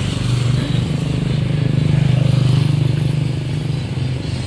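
A motorcycle engine passing close by on the road. Its low, fast-pulsing hum grows loudest about two seconds in and fades near the end, over steady traffic noise.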